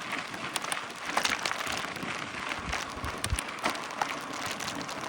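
Mountain bike riding over a rough dirt track: a steady crunching hiss of tyres on grit, dotted with many small clicks and rattles, with a couple of low thumps about halfway through.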